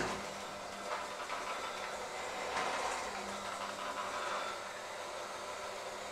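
Electric hand mixer running with a steady hum, its beaters working a thick dough in a stainless steel bowl.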